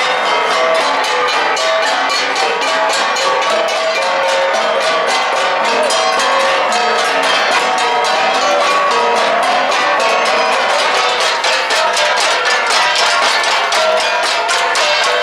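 Igorot gangsa, flat bronze gongs, played together in a fast, steady rhythm of many strokes a second, with several pitches ringing over one another.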